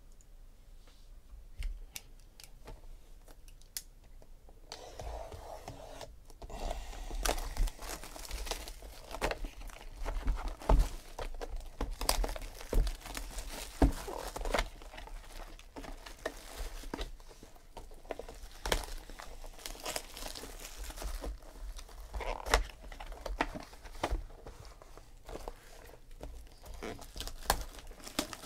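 Clear plastic shrink-wrap being torn and crumpled by hand as sealed trading-card boxes are unwrapped: a few light clicks, then from about five seconds in a dense, continuous run of crinkling and tearing.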